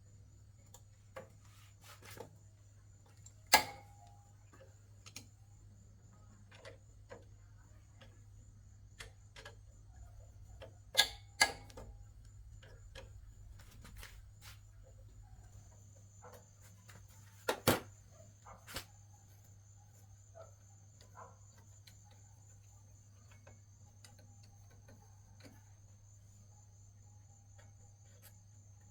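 Scattered light clicks and taps with a few sharper knocks, about three and a half seconds in, two close together about eleven seconds in, and two more about seventeen and a half seconds in. They sound over a faint steady low hum and a thin high steady tone.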